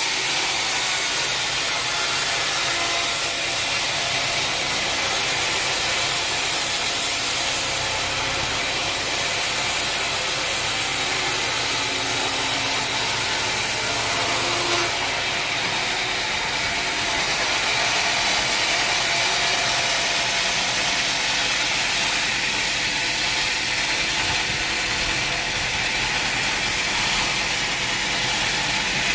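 Sawmill machinery running steadily while a log is sawn into boards: a continuous clattering mechanical noise with a saw hiss, the highest hiss easing off about halfway through.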